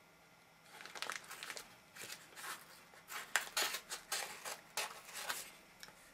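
Scissors cutting across the top of a padded paper mailer, a run of short snips with the paper crinkling, starting about a second in at roughly two a second.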